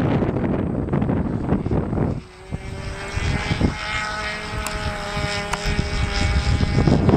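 Wind buffeting the microphone, then about two seconds in it eases and a radio-controlled model airplane's motor and propeller is heard as a steady pitched drone that rises slightly in pitch and holds, until the wind noise covers it again near the end.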